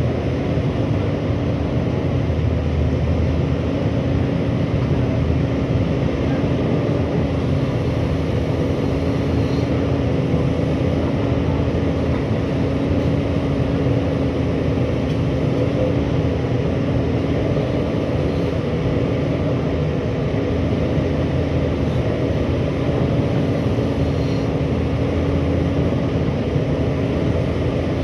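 Pindad excavator's diesel engine running steadily under working load as it moves its boom and bucket, a constant drone with an unchanging hum.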